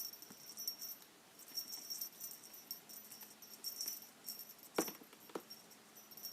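Faint light metallic jingling in short bursts, a kitten's toy being batted about, with a sharp soft knock about five seconds in.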